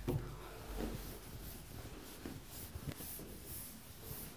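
Cloth wiping marker off a whiteboard in repeated faint rubbing strokes, after a soft knock at the start.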